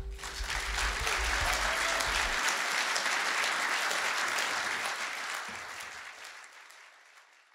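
Audience applauding at the end of a song, over the last acoustic guitar chord ringing out briefly at the start. The applause fades away in the last couple of seconds.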